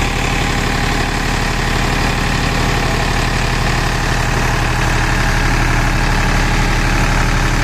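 Farmtrac 45 tractor's three-cylinder diesel engine running steadily under load, driving a rotavator through the soil.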